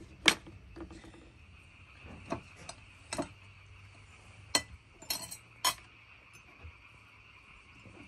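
Glass tea cups and plates clinking and tapping as they are handled, about half a dozen sharp separate clinks over the first six seconds, over a steady high background drone.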